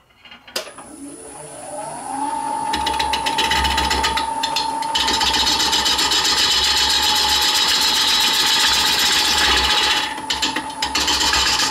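Wood lathe switched on with a click, its motor whine rising in pitch and levelling off within a couple of seconds. Then a bowl gouge cutting into the spinning wooden bowl blank, a loud, rapid chatter of the tool on the rough face, with a brief let-up about ten seconds in.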